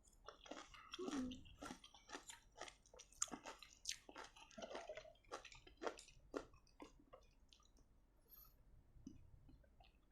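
A person chewing and crunching lime slices of rujak with sambal, close to the microphone: a quick run of crunchy bites and chews that thins out after about seven seconds.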